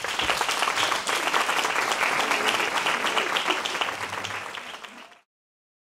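Audience applauding, thinning out after about four seconds and cut off suddenly a little after five seconds in.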